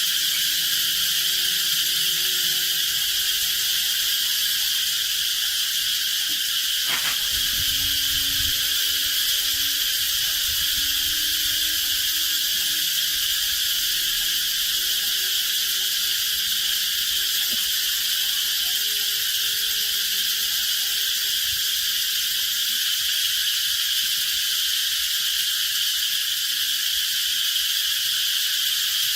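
Steady, high-pitched chorus of insects, shrilling without a break. A single knock sounds about seven seconds in, with a brief low rumble after it.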